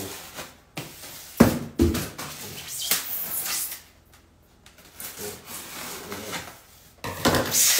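A white meat-delivery box being handled on a counter: two knocks about a second and a half in, then rustling, and louder scraping and rubbing near the end as the lid is worked open.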